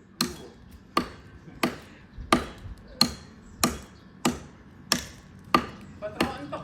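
Tree trunk being chopped by hand: ten sharp, evenly paced strokes of a blade biting into the wood, about three every two seconds, each with a short ring.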